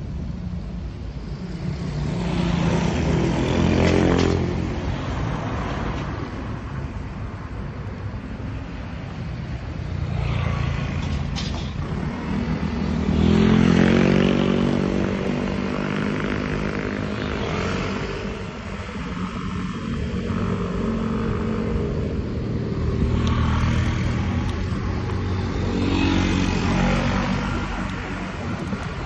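Road traffic heard from a moving bicycle: motor vehicles passing in several swells of engine sound, the loudest about 13 seconds in, over a steady low rumble.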